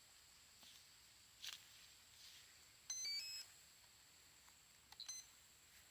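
Brushless motor speed controller (ESC) power-up tones sounded through the plane's 1400 kV brushless motor as the LiPo battery is plugged in: a short stepped tune of high beeps about three seconds in, then a few short beeps near five seconds, the ESC initialising and arming. A sharp click comes about a second and a half in.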